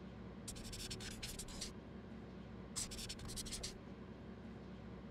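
Faint scratching of a pen writing on paper in two short passes, each about a second long, over a low steady hum.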